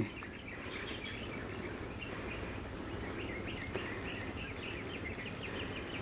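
Insects chirping in the background: a steady high-pitched drone with many faint short chirps running through it.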